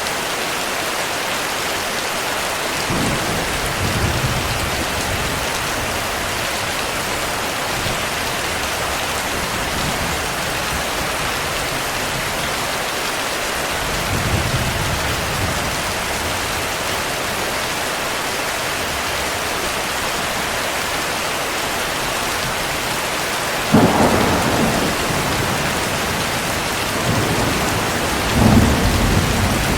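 Steady heavy rain with thunder: soft low rumbles a few seconds in and again in the middle, then a sudden, louder thunderclap rolling off over a few seconds about three-quarters of the way through, and another rumble near the end.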